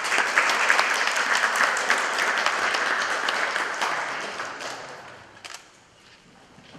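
Audience applauding, many hands clapping together, the applause dying away about five seconds in.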